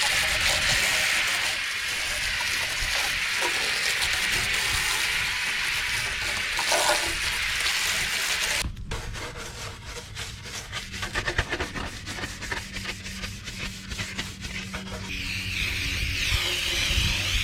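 A dirty furnace blower housing being cleaned. First comes a steady spraying hiss as it is pre-soaked. Then, after an abrupt change about nine seconds in, there are rapid rubbing strokes as it is scrubbed with a brush.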